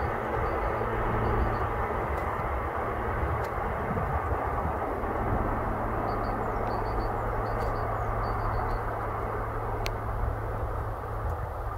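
A steady low rumble with a constant hum, typical of a distant engine running, with faint high chirps in short groups over it.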